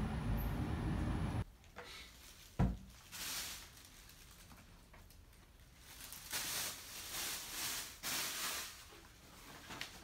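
A low rumbling background stops abruptly about a second and a half in. After that a quiet room holds soft rustling and shuffling from someone moving about with a handheld camera, and one dull knock at about two and a half seconds.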